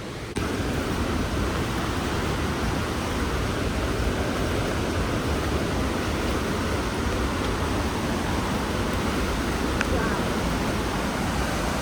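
Steady rushing of the Río Celeste waterfall's water, an even roar that starts abruptly just after the start and holds level.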